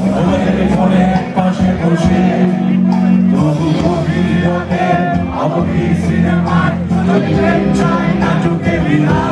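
Live rock band playing loud: a male vocalist singing over electric guitars, bass guitar and drums, heard through the PA.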